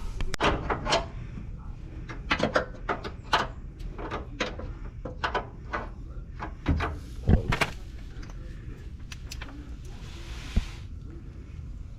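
Irregular knocks and clanks of metal parts and tools as the bumper's mounting brackets are worked into place. The strikes come in short clusters, with the loudest pair a little past halfway.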